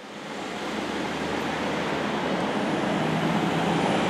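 Fire engine's diesel engine running as the truck pulls through a turn toward the listener, growing steadily louder, with a low engine hum under road noise.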